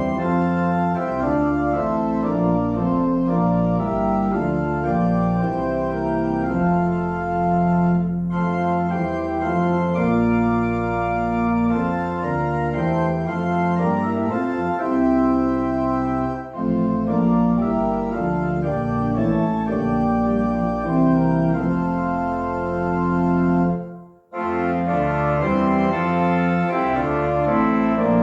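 Church organ playing a postlude after the dismissal: slow, sustained chords that move every second or so. It breaks off briefly about 24 s in and then continues.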